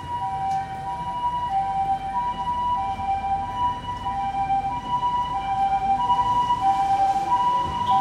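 Japanese ambulance two-tone hi-lo siren, a high and a low tone alternating about every two-thirds of a second, slowly growing louder.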